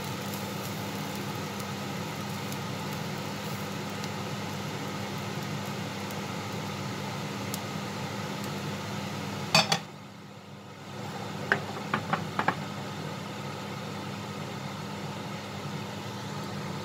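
Metal frying pan knocking and clinking against a ceramic bowl as cooked minced pork is scraped out of it: two sharp knocks about nine and a half seconds in, then four light clinks about two seconds later. A steady mechanical hum runs underneath.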